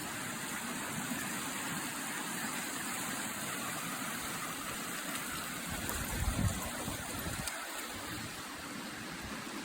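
Steady rushing of a waterfall and stream, with a brief low rumble about six seconds in.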